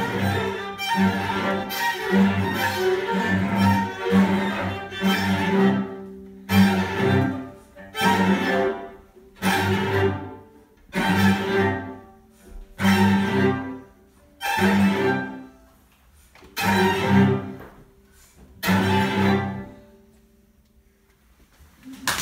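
String quartet (violins, viola and cello) playing the closing bars of a piece: continuous playing for about six seconds, then a row of about nine loud, separate chords, each dying away, with the gaps between them growing longer. A short silence follows the last chord, and applause breaks out at the very end.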